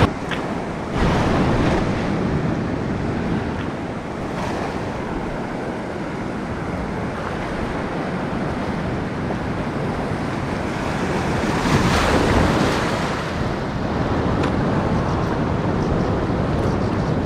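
Surf washing over a rocky shore, with wind buffeting the microphone; the wash swells louder about twelve seconds in.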